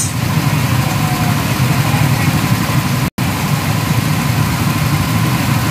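Gasoline go-kart engines idling steadily, several karts running together while lined up in the pit lane. The sound cuts out for an instant about three seconds in.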